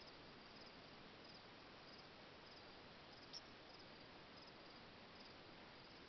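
Faint insects chirping at dusk in short, high-pitched pulses repeating at fairly even spacing, over a low hiss. A single soft tick a little past halfway.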